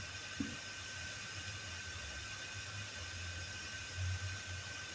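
Steady background hiss with a low, wavering hum and a faint high whine, broken once by a small click about half a second in.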